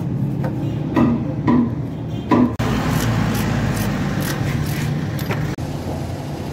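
Hand tools knocking on a car's metal engine parts, three sharp knocks in the first half, over a steady low hum.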